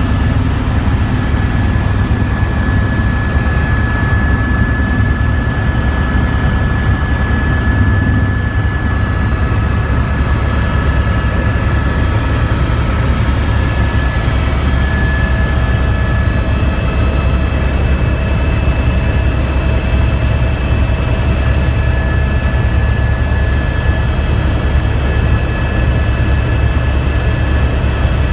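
Helicopter in flight: steady, loud engine and rotor noise with a rapid low beat and a constant high whine.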